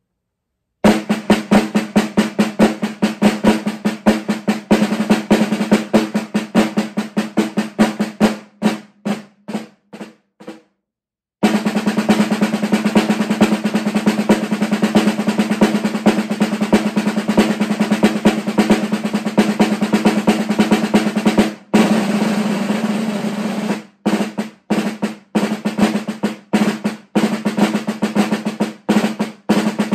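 Marching snare drum played solo with sticks: a rudimental, corps-style piece of fast strokes, flam accents and rimshots at changing loudness. It starts about a second in, pauses briefly around a third of the way through, then runs through a long stretch of fast, dense playing, and ends in choppier phrases broken by short rests.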